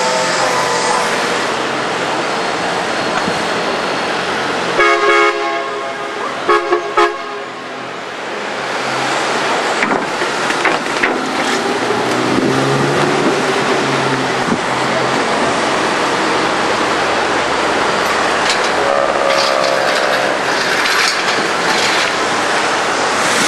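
Car horn honking: one blast about five seconds in, then two short toots, over a steady wash of car engines and street noise. Later a car's engine pulls past at low speed.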